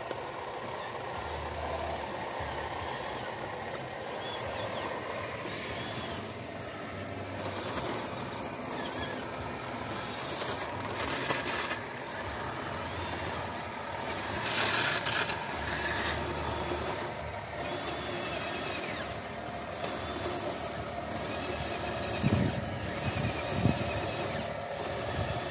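Radio-controlled construction models at work: the steady motor whine of an RC excavator digging soil and an RC dump truck driving up to it. A brief hiss comes about 15 seconds in, and two short rising motor sounds near the end.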